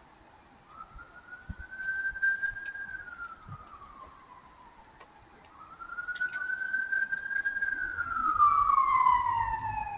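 Emergency vehicle siren on a slow wail: the pitch climbs, holds and falls in long sweeps of several seconds each, about two in a row. It grows louder as it goes.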